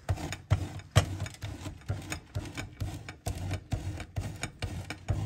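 Hard cheese being grated on the fine side of a grater: rhythmic scraping strokes, about two a second.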